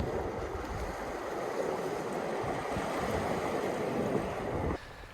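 Sea water washing steadily over rocks, with wind rumbling on the microphone; the sound cuts off suddenly near the end.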